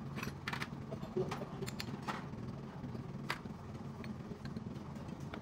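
Scattered light clicks and taps of hand tools on engine parts during assembly, over a steady low hum.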